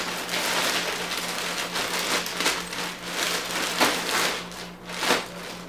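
Shopping bag and plastic packaging rustling and crinkling as clothes are pulled out, a steady rustle dotted with sharp crackles that thins out near the end.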